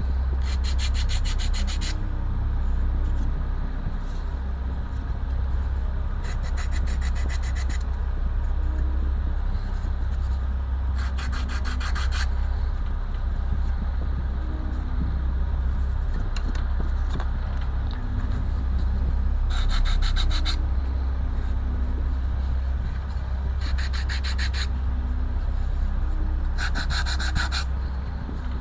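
Thin wooden model parts being worked by hand: about six short bursts of rapid back-and-forth rubbing strokes, each a second or two long, over a steady low hum.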